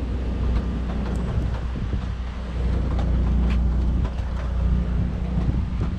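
Outdoor storm ambience: a steady low rumble, most likely wind, with faint scattered ticks over it.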